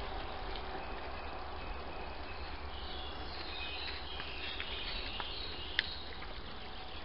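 Forest ambience: a steady hiss over a constant low hum, with faint high chirping about halfway through and a single sharp click near the end.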